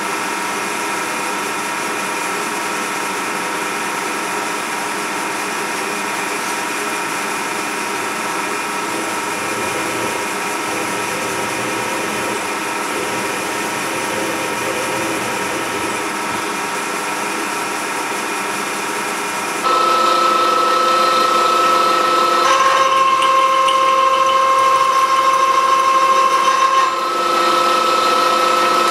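Milling machine spindle running steadily with a drill in it, giving a machine whine with steady tones. About two-thirds of the way in it gets louder, then its note drops for a few seconds and comes back up, as the drill cuts into the workpiece and is backed out.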